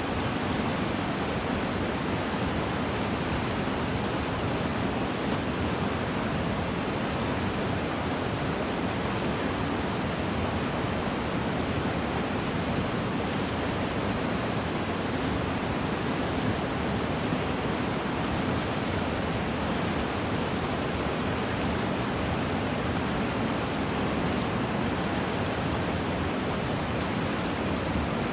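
Steady rush of flowing stream water, an even, unbroken noise.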